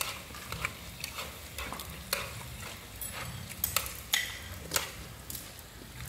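Metal chopsticks and utensils clicking and scraping against plates and a sauce dish in irregular taps, roughly two a second, over the faint sizzle of food frying in a wok on a tabletop gas stove.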